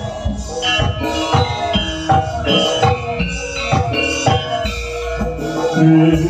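Live campursari music: a Javanese gamelan-style ensemble playing, with drum strokes about twice a second under ringing metallophone notes, and a low held note swelling near the end.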